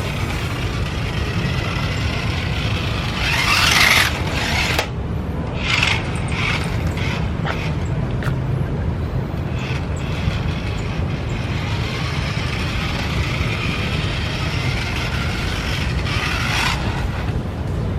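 Toy RC car driving, its small DC motors and plastic gears running, with louder surges about 3 to 4 seconds in and again near the end, and a series of sharp clicks in between.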